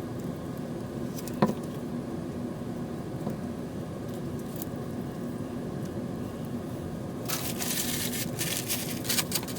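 Handling noise from working on a sewage pump's float switch assembly: one sharp click about a second and a half in, then rustling and scraping of plastic and cord near the end, over a steady low hum.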